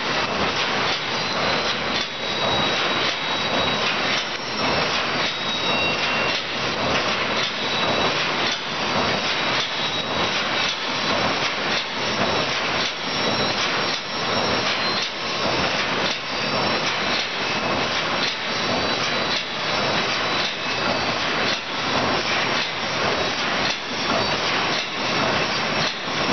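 Automatic wire mesh welding machine running, a loud continuous clatter and hiss with a regular beat of short pulses as it cycles through welding and advancing the mesh.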